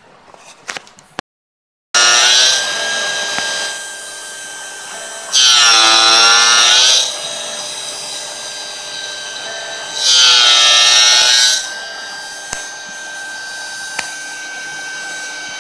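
CNC spindle driving a 0.8-module gear cutter through a brass gear blank: a steady spindle whine, with three louder passes of cutting, near the start, about six seconds in, and about ten seconds in. During the later passes the pitch sags as the cutter takes the load.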